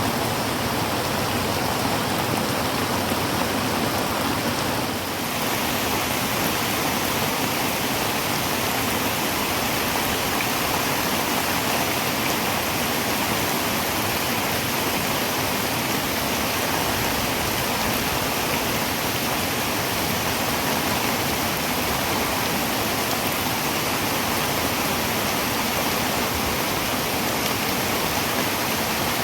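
Heavy rain falling on a tin roof: a steady, dense hiss with no pauses, dipping slightly in level for a moment about five seconds in.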